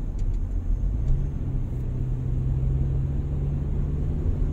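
Car cabin noise while driving: a steady low rumble of engine and tyres on the road, with an engine hum that comes in about a second in and rises slightly in pitch.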